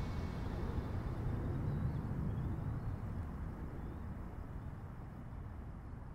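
A low, steady rumble with no melody, slowly fading out.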